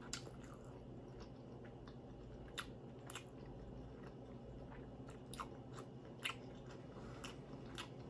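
A person chewing food close to the microphone, with scattered short wet mouth clicks and smacks.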